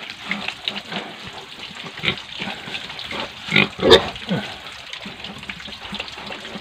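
A pig grunts twice, a little over three and a half seconds in. Under it is the wet rubbing and scrubbing of soapy lather being worked into its hide by hand.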